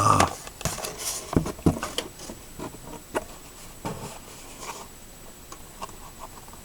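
Light handling noises from a carded action figure's cardboard-and-plastic blister pack being turned over: scattered soft taps, clicks and rustles, busiest in the first couple of seconds, then a few more near the middle.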